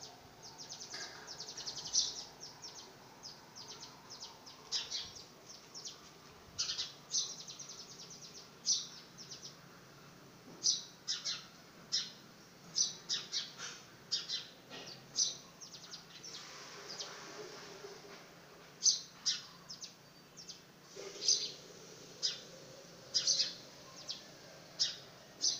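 House sparrows chirping: short, high chirps repeated irregularly throughout, often several in quick succession.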